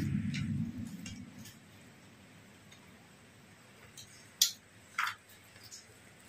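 Light clinks of dishes during a meal: two short clinks about four and five seconds in. Before them a low muffled rumble fades away over the first second and a half.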